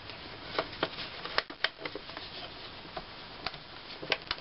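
Fabric and piping being turned and pushed into place under a raised sewing-machine presser foot: irregular light rustles and small clicks, with the machine not stitching.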